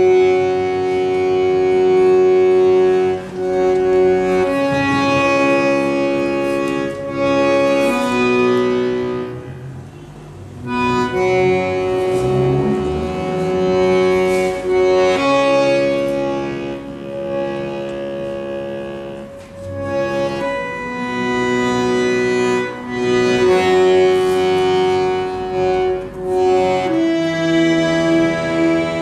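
Accordion playing slow, held chords that change every second or two, with short breaks about ten and about twenty seconds in.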